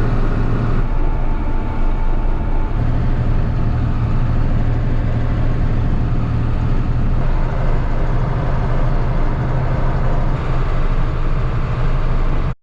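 John Deere 4440 tractor's six-cylinder diesel engine running steadily under load while towing a pull-type swather along the road, a steady low engine hum.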